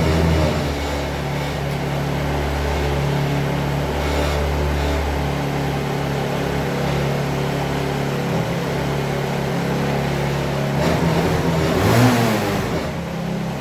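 Small 50cc Chinese scooter engine idling steadily, with one brief rev that rises and falls near the end.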